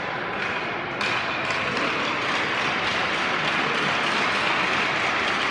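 Spectators clapping in an ice rink, a steady patter that grows louder about a second in.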